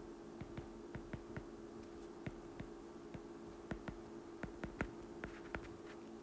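Stylus tip tapping and clicking irregularly on an iPad's glass screen during handwriting: many short, faint clicks, denser toward the end, over a faint steady hum.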